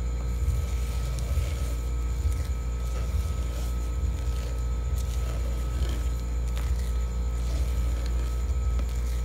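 Spatula folding and pressing macaron batter against a glass bowl, with faint, irregular soft squishes and scrapes. These sit over a steady low hum that is louder than the spatula.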